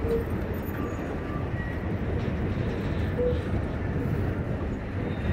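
Freight train's covered hopper wagons rolling past: a steady rumble of steel wheels on rail, with brief faint squeals now and then.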